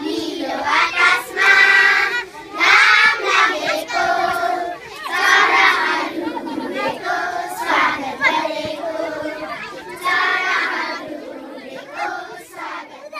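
A group of children singing together in short phrases with brief breaks, fading near the end.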